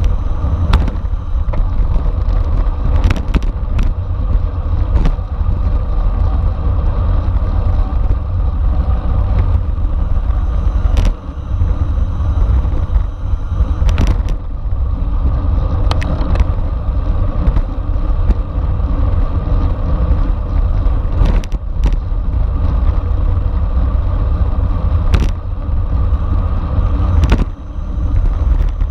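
Wind rushing over a camera microphone on a bicycle ridden at race speed: a loud, steady low rumble. Scattered sharp clicks and knocks come through it.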